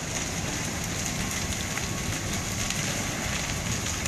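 Several garages burning fiercely: a steady rushing hiss of the fire, dotted with frequent crackles and pops.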